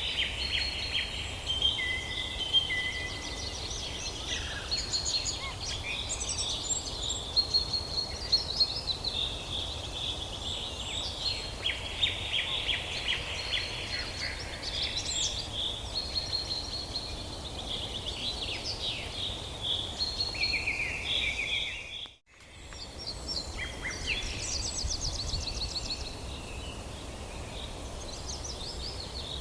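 Several wild birds singing and calling at once: overlapping chirps, whistles and rapid trills over a steady low rumble. About two-thirds of the way through, everything drops out for a moment, then resumes.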